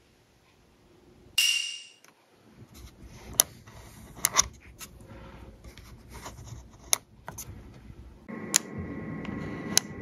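Charge-rate dial on a FOSSiBOT F2400 portable power station being turned by hand, giving a series of sharp separate clicks. A short loud burst with a ringing tone comes about a second and a half in, and a steady hum comes in about 8 seconds in.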